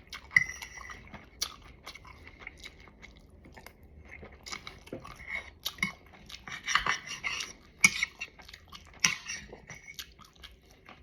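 A person chewing food, with cutlery clicking and scraping against a plate in short irregular bursts.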